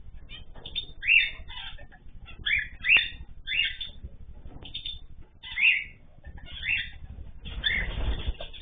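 Pet cage birds calling: a series of short, high calls about once a second, with a low background rumble.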